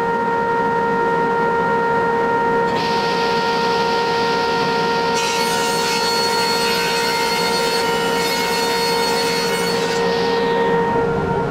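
Table saw ripping a sheet of plywood. The cutting noise comes in about three seconds in, turns fuller and hissier about five seconds in, and fades away near the end. Under it runs a steady whining hum.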